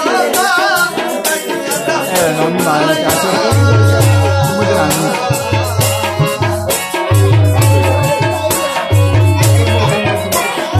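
Live folk song: a singer's voice wavering over a hand drum's deep beat, with fast rattling percussion throughout. The deep drum beat drops out at the start and comes back in strongly about three and a half seconds in.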